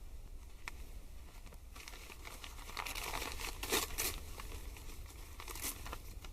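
Paper being crumpled and torn by hand: rustling and crinkling from about a second and a half in, with a few sharper, louder crackles.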